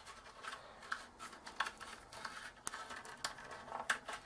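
Faint handling noise of a sheathed servo lead being worked under a spacer on a model helicopter frame: light rubbing with scattered small clicks, a few sharper ones in the second half.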